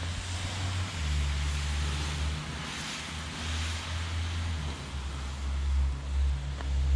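Strong wind buffeting the microphone in gusts, a deep rumble that swells and eases over a steady rushing hiss.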